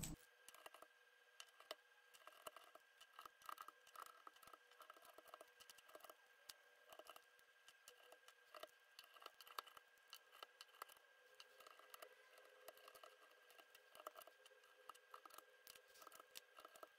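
Faint, rapid, irregular plastic clicks and scrapes of keycaps being pried off a mechanical keyboard with a keycap puller, the recording sped up.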